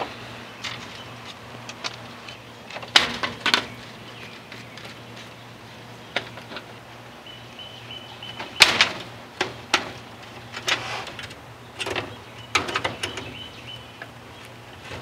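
Screen panel being fitted back into a metal storm door: a scattered series of sharp clicks and knocks as the frame is pushed, tapped and seated in place, with the loudest knocks about three and nine seconds in and a quick run of clicks near the end.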